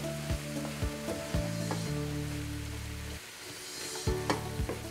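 A wooden spoon stirring vegetables and cauliflower rice in a sizzling nonstick skillet, with repeated light knocks and scrapes against the pan. Soft background music with sustained notes plays underneath.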